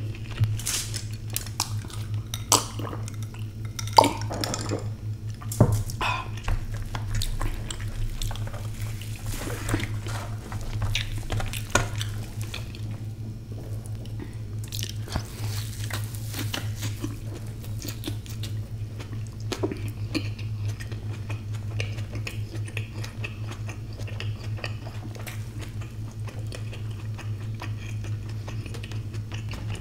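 Close-miked eating sounds: hands handling food on a steel platter with several sharp clinks in the first half, then an egg omelette being torn, dipped in chutney and chewed, over a steady low hum.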